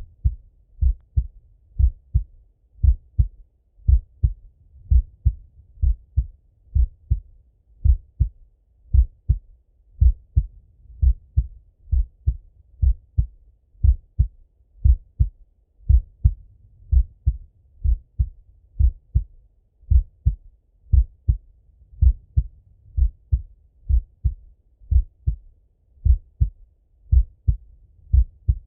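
A resting adult male heart heard through a Littmann stethoscope: slow, even lub-dub beats, about one a second, each a pair of dull low thuds.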